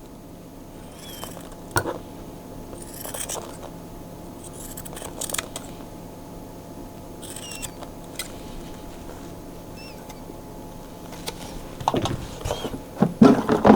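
Scissors snipping through the strands of a jig's skirt to trim it shorter, a few separate cuts with a sharp click among them.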